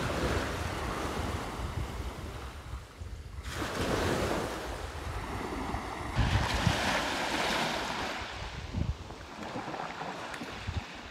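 Small waves washing onto a sandy beach, with wind buffeting the microphone. The sound changes abruptly twice.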